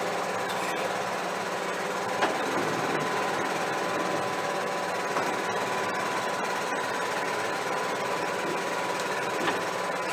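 John Deere 6155R tractor's six-cylinder diesel engine running steadily, heard inside the cab, as it pulls two loaded grain trailers at low speed. A steady whine runs under the engine sound, and there are two short knocks, one about two seconds in and one near the end.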